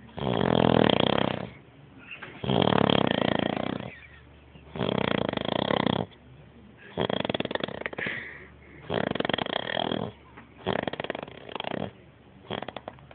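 Loud snoring, one snore about every two seconds with quiet breaths between. The later snores are shorter and more broken, fluttering.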